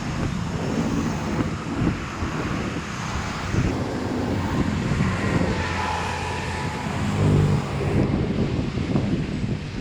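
Rainwater rushing into a street culvert drain, a steady wash of water noise with a low rumble, with wind buffeting the microphone.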